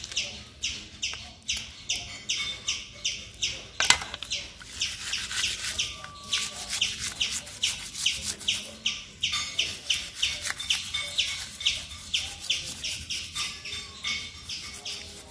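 An even, rapid series of short high chirps, about three a second, from an unseen small creature, with one sharp click about four seconds in.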